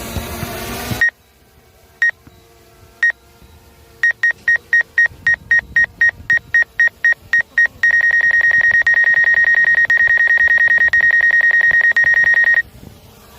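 Electronic beeping at one high pitch, likely a DJI drone remote controller warning: single beeps about a second apart, then about four quick beeps a second, then an unbroken beep lasting several seconds before it stops. Loud wind and street noise cuts off suddenly about a second in.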